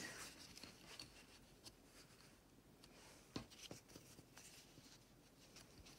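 Near silence: faint rustling of cotton fabric and webbing strap being handled on a cutting mat, with a light tap about three and a half seconds in.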